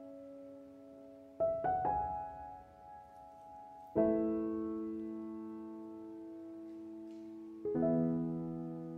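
Slow solo piano background music: a quickly rolled chord about one and a half seconds in, then held chords at about four seconds and near the end, each left to ring and fade.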